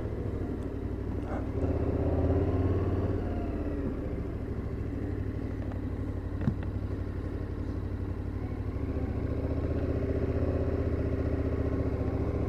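KTM 1290 Super Adventure's V-twin engine running at low road speed, its pitch rising and falling gently. A single short click comes about six and a half seconds in.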